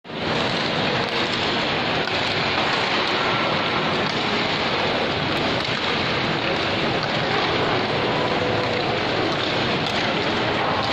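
Steady, even din of a busy indoor shopping mall: crowd chatter and hall noise blending into a continuous wash.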